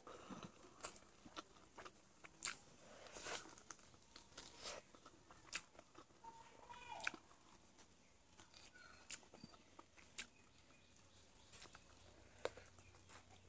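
Close-up chewing and biting of cooked chicken, with sharp crunches and wet clicks coming at irregular intervals.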